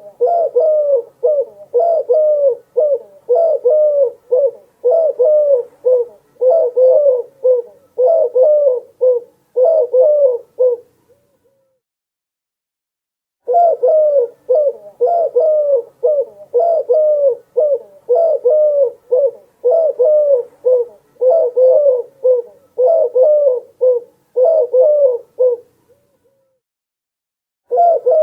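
A dove cooing: runs of short coos at about one a second, each run lasting around ten seconds, with a silent pause of two or three seconds between runs.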